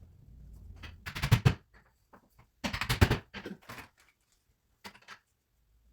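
Wooden parts of a plant stand being handled and knocked together during assembly: several quick clusters of clacks and knocks with pauses between them.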